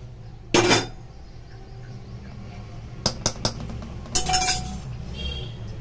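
Metal cooking utensils knocking and clinking: a loud clatter about half a second in, a few quick sharp clinks around three seconds, and a short ringing clink just after four seconds.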